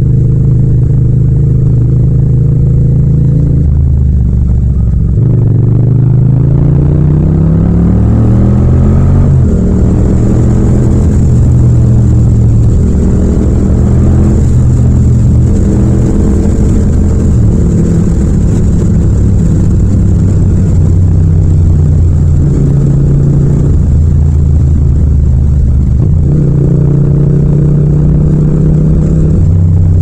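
Yamaha MT-07's 689 cc parallel-twin engine with a Yoshimura exhaust, ridden on the road. The revs rise once from about four seconds in, then the engine runs at a steady cruise, easing off and pulling again a few times.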